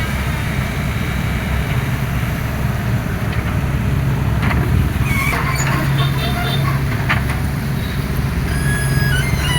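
Excavator's diesel engine running steadily with a low hum, with a few short high squeaks and clicks in the middle and near the end.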